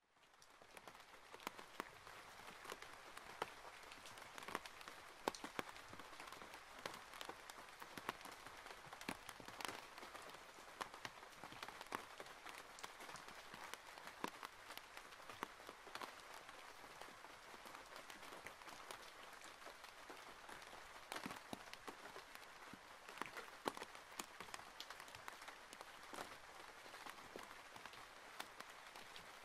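Rain falling on a window: a steady, quiet hiss with frequent sharp drops tapping irregularly on the glass, fading in at the very start.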